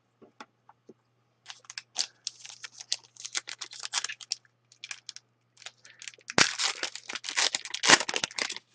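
Wrapper of a 2011-12 Elite hockey card pack being torn open and crinkled, in two crackling spells with a few light ticks before.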